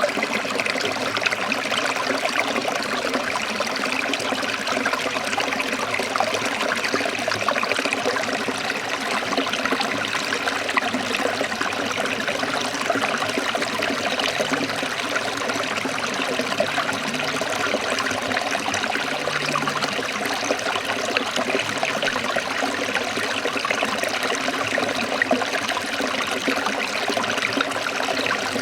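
Small forest stream trickling and babbling over rocks, a steady, even rush of water.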